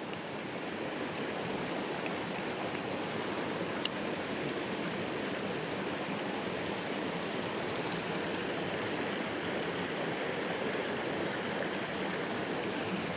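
Shallow river water flowing steadily over rocks, an even rushing burble, with one short sharp click about four seconds in.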